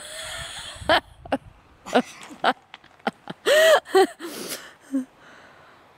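A man gasping in short, sharp breaths and letting out a pitched cry a little past three and a half seconds in as he wades into a cold river, the usual reaction to cold-water shock.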